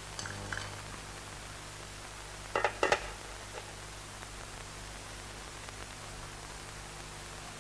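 Cutlery and dishes clinking at a dinner table: a few soft clinks near the start, then a louder pair close together between two and three seconds in, over a steady hiss.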